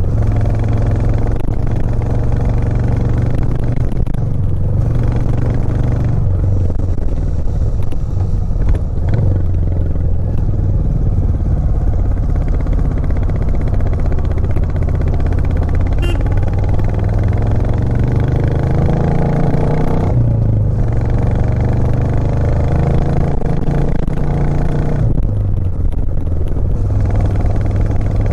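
Royal Enfield Classic 350 Reborn's 349 cc single-cylinder engine pulling uphill while being ridden, its note rising slowly as it revs. The note drops short three times.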